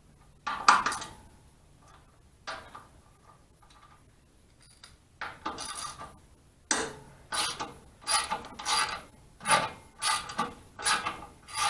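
Hand tools working a bolt on the log splitter's metal frame: a few scattered clinks, then from about halfway a steady run of short ratcheting strokes, about two a second.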